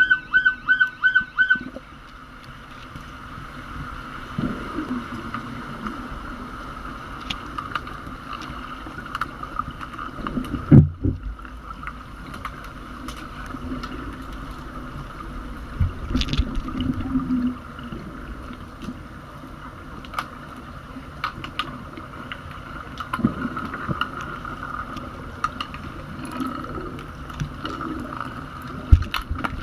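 Muffled underwater pool sound picked up by a submerged camera during an underwater hockey game: a steady hum with scattered clicks and knocks, and one heavier thump about eleven seconds in. A quick run of about six beeps sounds at the very start.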